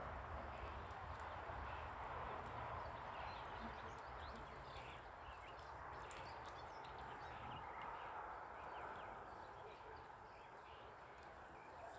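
Faint riverside ambience: scattered short bird chirps over a steady hiss and a low rumble on the phone's microphone.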